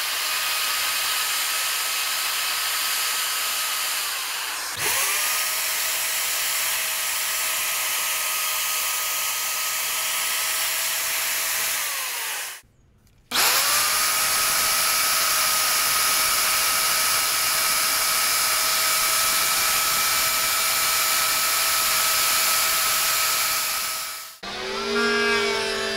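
Electric wood router running at high speed as it is fed along a wooden board, a steady high whine with a hiss. It winds down and spins back up about four seconds in, stops briefly around the middle and starts again, then winds down near the end. A different wavering pitched sound follows in the last moment.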